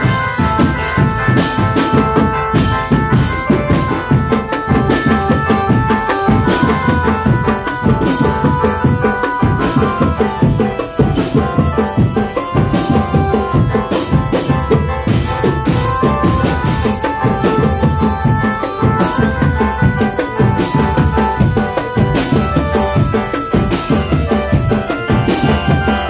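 Drum band music: continuous drumming with a sustained melody carried over it.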